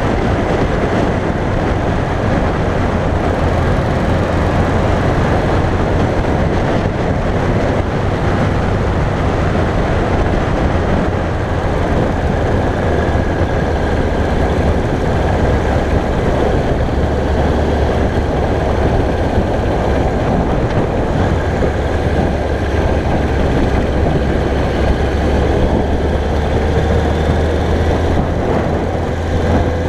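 2001 Yamaha YZF-R1's 998 cc inline-four engine heard from on board while cruising at a steady, moderate road speed, mixed with wind rushing over the microphone. The engine note holds even, with no revving up or down.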